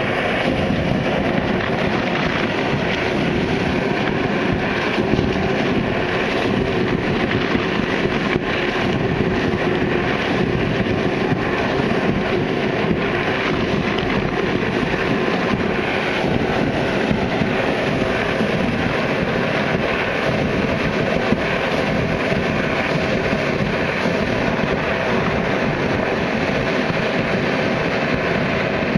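Hot spring water gushing: a steady rushing noise that goes on without a break.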